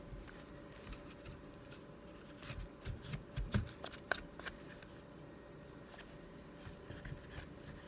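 Faint rustling of a cloth wiping Glock pistol parts, with scattered light clicks and taps from handling the parts, busiest a couple of seconds in.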